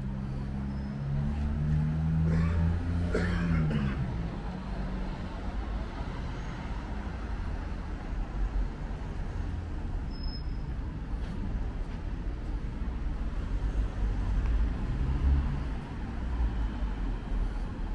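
Road traffic: a vehicle engine running, its pitch falling as it goes by about three seconds in, then a steady low traffic rumble.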